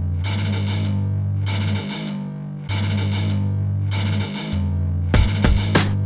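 Background music: a distorted electric guitar riff repeating over a steady bass line, with drum hits coming in about five seconds in.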